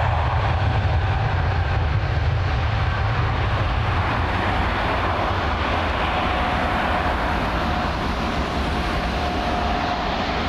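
Boeing 777-300's twin jet engines at takeoff power, a steady deep rumble as the airliner rolls away down the runway, easing slightly toward the end. A faint steady whine comes in about halfway.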